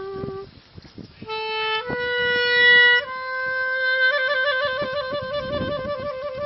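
Solo clarinet playing: a held note breaks off about half a second in, and after a short pause the melody climbs through a few held notes, loudest at about two and a half seconds. From about four seconds in it plays a fast trill.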